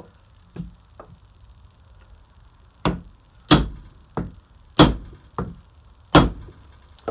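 Hammer blows on a wooden punch, driving the old handle wood out of the eye of a double-bit axe head. A few light taps come first, then about six hard knocks from about three seconds in, roughly 0.6 s apart.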